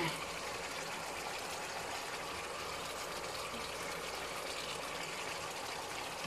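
Pork in shrimp-paste sauce simmering in a pan on the stove: a steady hiss.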